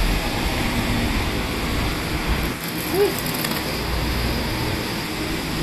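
Steady city street traffic noise, a constant rumble and hiss, with a brief squeak about three seconds in.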